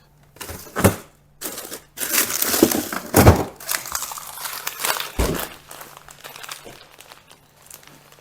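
Kitchen wrapping or packaging crinkling and rustling as it is handled, in several bursts, with three dull knocks about one, three and five seconds in.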